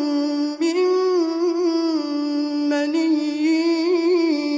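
Male reciter chanting the Quran in tajweed style, drawing out the words 'min maniyyin' in long held melodic notes with slight ornaments. Short breaths break the line about half a second in and again near three seconds.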